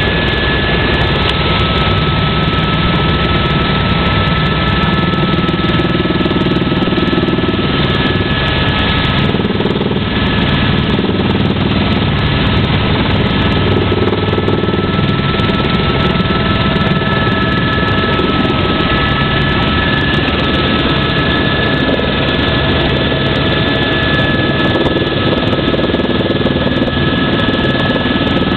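Helicopter engine and rotor noise heard from inside the cabin: a loud, steady drone with a high, steady whine on top, during the approach to land.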